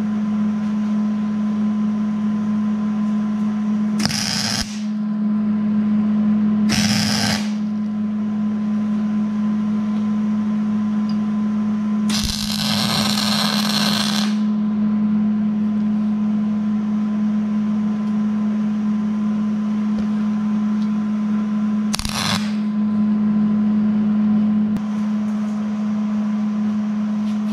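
Arc welding on a steel wheel rim: short bursts of welding arc crackle and hiss about four and seven seconds in, a longer burst of about two seconds around twelve seconds in, and a brief one near twenty-two seconds, over a steady low hum.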